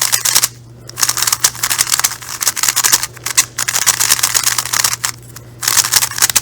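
A brand-new Moyu maglev 3x3 speed cube being turned quickly by hand on its out-of-the-box setup: fast runs of clicking, clacking layer turns in spurts. The runs break off in short pauses about half a second in, around three seconds in and near five seconds in.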